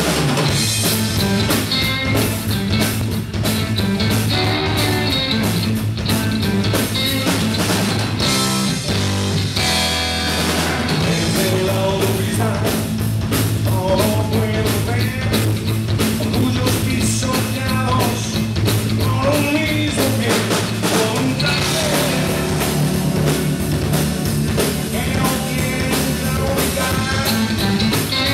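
Live rock band playing electric guitars, bass and drum kit at full volume, with a lead vocal sung over it.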